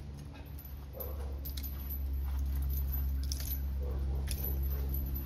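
Scattered small crunches and clicks of dry leaves underfoot and hands handling the rope, over a steady low hum.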